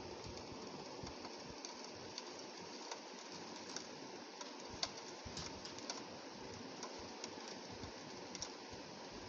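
Rain falling on window glass: a steady hiss with irregular sharp ticks of drops striking the pane.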